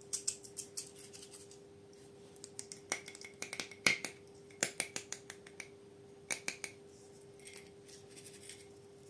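Small glass jar of sequin glitter handled and its plastic screw lid twisted off: a string of sharp clicks and taps in several clusters, some with a short glassy ring.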